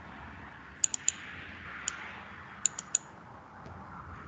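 Computer mouse button clicks, seven sharp clicks in quick groups (three, then one, then three), as lines are picked one after another with the CAD trim command.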